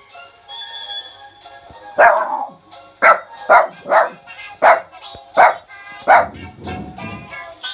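A small Shih Tzu barking sharply about seven times in quick succession, starting about two seconds in, at singing chipmunk plush toys. The toys' electronic song plays underneath.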